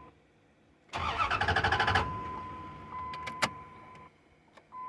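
2002 Dodge Ram's 5.9-litre V8 cranked by the starter for about a second, turning over in a quick rhythmic pulse, then stopping without catching: the crank/no-start fault that a new alternator has not cured. A sharp click comes about three and a half seconds in, over a steady high electronic tone.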